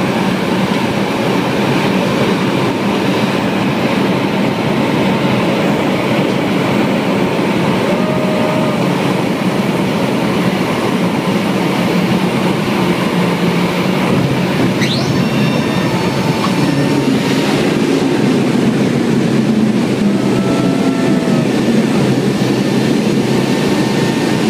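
C-130 Hercules' Allison T56 turboprop engines and propellers droning steadily, heard loud from inside the cabin as the aircraft lands and rolls out on the runway.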